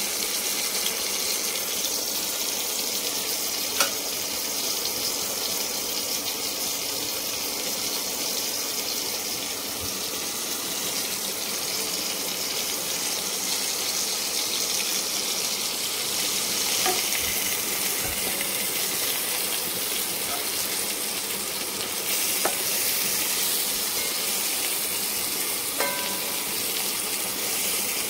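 Cornflour-dusted chicken and mutton patties shallow-frying in oil in a pan: a steady sizzle, with a few light clicks as they are handled.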